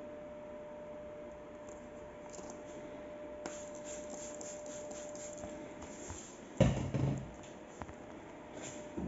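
Hand trigger spray bottle misting cleaner onto a car's vinyl-wrapped hood in a run of short hissing sprays. About two-thirds of the way in comes a loud thump, the loudest sound here, with a brief rustle after it.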